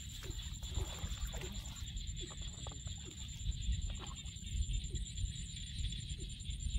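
Outdoor ambience: wind rumbling on the microphone, a steady high whine, and short animal calls repeating every half second or so, with a few soft knocks.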